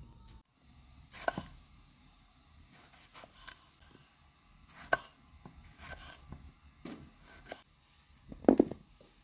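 Kitchen knife slicing tomatoes on a wooden cutting board: a series of separate cuts, each ending in a light tap of the blade on the board, with a heavier knock near the end.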